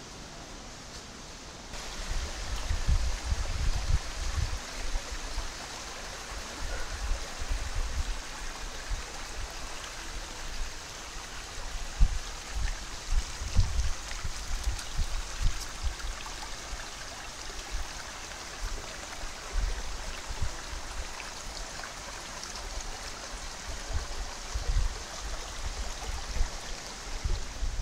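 Steady rush of running water, with irregular low rumbles of wind buffeting the microphone.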